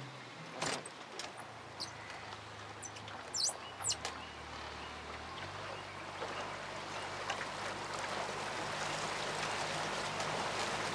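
Boat motor running steadily, moving the boat off shallow water, its hum shifting about halfway through. A few bird chirps come through briefly a few seconds in.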